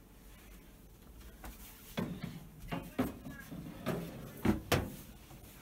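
Metal baking tray knocking and scraping against the rack and walls of a countertop oven as it is slid in, a series of clatters starting about two seconds in.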